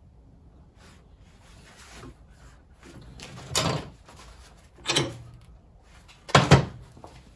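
Hammer blows on a steel gas pedal clamped in a bench vise, bending it: three heavy strikes roughly a second and a half apart, the last the loudest.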